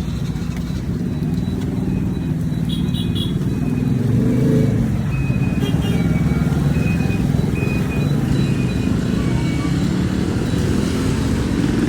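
Motorbike engines running close by in street traffic, a steady low rumble with one engine rising and falling in pitch about four to five seconds in.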